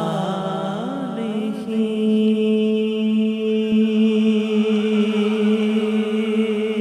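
A man singing a naat into a microphone: a brief ornamented run about a second in, then one long held note.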